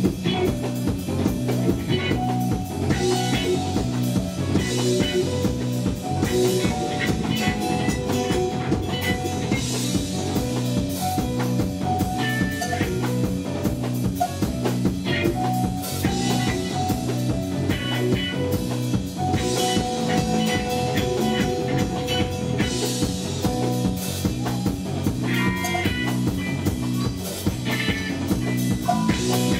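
Live rock band playing an instrumental passage: electric guitars over a drum kit, amplified through a club PA, with a steady beat.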